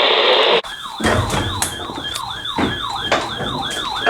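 Radio static hiss cuts off about half a second in. An electronic alert siren follows, a rapid yelping tone swooping down and back up about twice a second, with scattered clicks.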